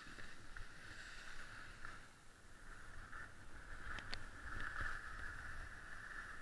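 Skis sliding and scraping over packed snow in a steady hiss, with a low wind rumble on the microphone. A single sharp click comes about four seconds in.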